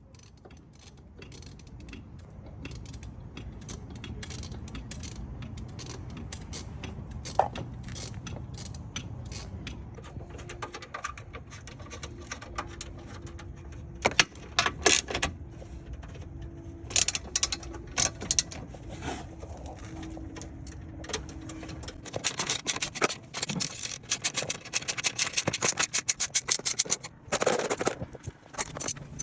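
Hand ratchet wrench clicking as bolts are worked loose, in short runs at first and then a long fast run of even clicks near the end, with scattered sharper metal clinks.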